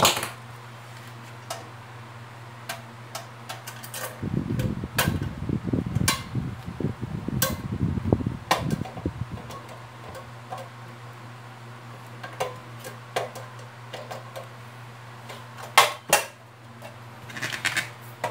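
Pliers and tie wire clicking and knocking against the plastic base of a bathroom scale as the wire is threaded and twisted, with scattered sharp clicks and a stretch of rustling handling noise from about four to nine seconds in. A steady low hum lies underneath.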